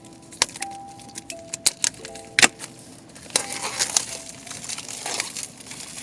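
Soft background music with held notes, over sharp clicks and taps of packaging being handled; from about three seconds in, packaging rustles.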